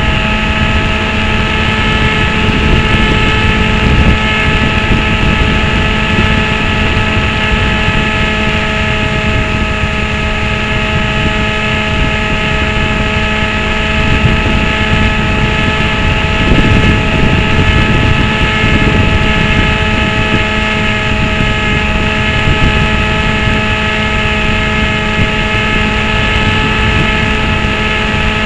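Onboard sound of a small aircraft's motor and propeller at steady throttle, heard from a camera mounted on it: an even whine held at several fixed pitches over wind rush, the rush swelling briefly about two-thirds of the way through.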